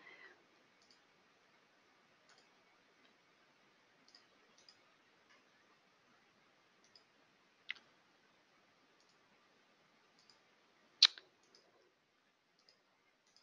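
Computer mouse clicking: faint scattered ticks and two sharper clicks, about eight and eleven seconds in.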